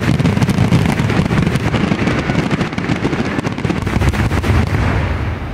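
Fireworks display firing a rapid, dense barrage of launches and bursts: a continuous run of crackling bangs over a heavy rumble that eases off near the end, as in a show's finale.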